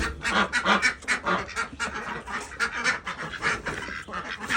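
Ducks quacking in a steady run of short calls, several a second.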